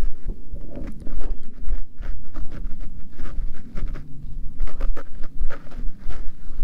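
A cat's fur rubbing and brushing right against the camera microphone while it is petted: a run of short scratchy rustles, several a second, over low bumping.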